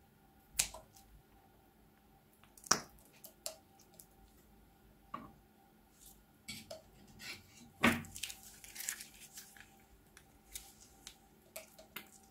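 Scissors snip the tip of a plastic piping bag, then gel beads squeezed out of it drop into wet glue. The result is scattered clicks, plops and squishes, two of them louder.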